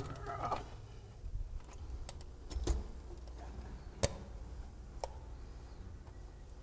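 Scattered light clicks and knocks as a model steam locomotive is set down and positioned by hand on a tabletop, the sharpest knock about four seconds in.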